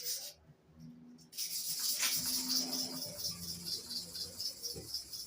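Hair clipper blade rubbed back and forth on an oiled manual sharpening stone, a quick, even rasping rhythm that starts about a second in. The strokes grind flat a blade surface that has curved.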